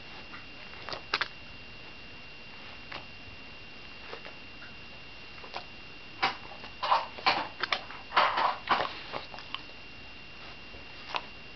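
Shiba Inu eating at a mound of food, making wet mouth clicks and smacks, a few scattered at first and then a quick run of chewing and licking sounds from about six to nine and a half seconds in.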